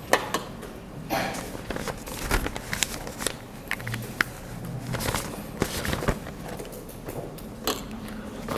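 Whiteboard marker tapping and scraping on a whiteboard: irregular small clicks and scrapes, several a second, over a low room hum.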